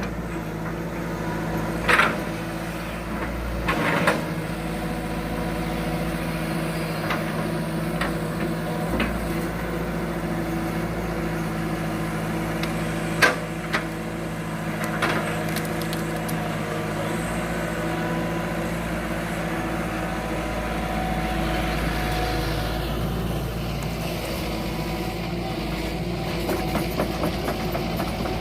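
Heavy diesel machinery (excavator and logging truck) running steadily, with a few sharp knocks of rubber-wood logs being handled, loudest about 2, 4 and 13 seconds in.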